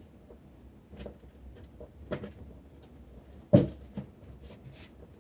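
Scattered light clicks and knocks of things being handled as a light is adjusted, with one sharp, louder knock about three and a half seconds in.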